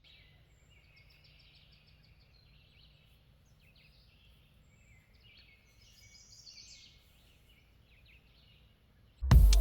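Faint songbirds chirping and twittering over a low steady outdoor hum, a little busier about two-thirds of the way through. Loud background music cuts in abruptly right at the end.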